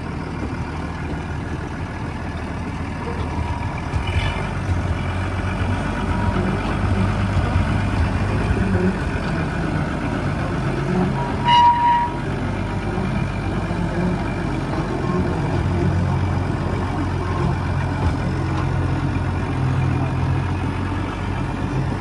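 Small diesel locomotive's engine running as it hauls a passenger car along narrow-gauge track, its note shifting now and then with the throttle. A short high beep sounds about halfway through.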